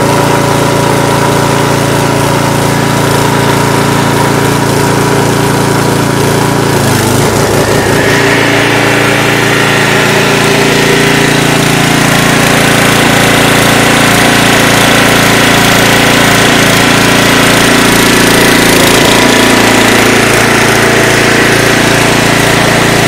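8 hp Briggs & Stratton single-cylinder engine on a log splitter, running steadily and driving the hydraulic pump. Its note changes about seven seconds in and again near twenty seconds.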